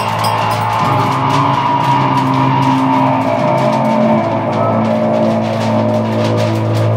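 Improvised electric drone music: a steady low bass drone under held tones that shift pitch a couple of times, over a rushing, noisy texture.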